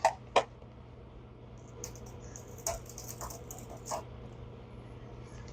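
Handling noises: two sharp clicks right at the start, then a few light scattered taps and ticks over a faint steady hum.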